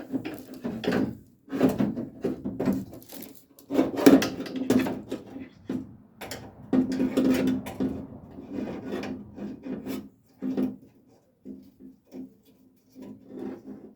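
Hands working latch and lock-rod parts inside a car door shell: irregular scraping and rubbing in bursts, with a few sharp knocks, thinning out near the end.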